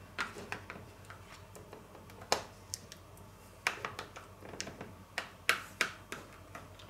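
A metal fork clicking and scraping against a plastic food container while marinade is worked over a pork steak. It makes a string of irregular light clicks, the sharpest a little over two seconds in and a pair around five and a half seconds in.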